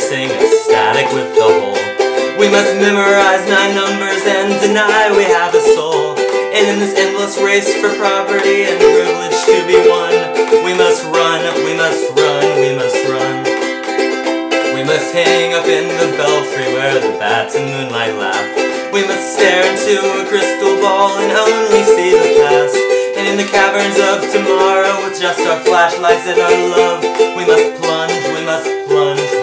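Ukulele strummed in a steady run of chords.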